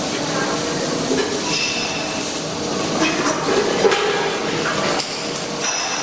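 Steady workshop noise with a hiss, and a few sharp metallic clinks and knocks in the second half.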